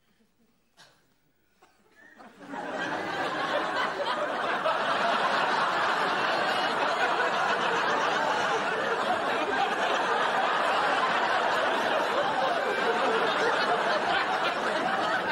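A couple of faint clicks in near silence, then about two seconds in a studio audience breaks into loud, sustained laughter that holds steady.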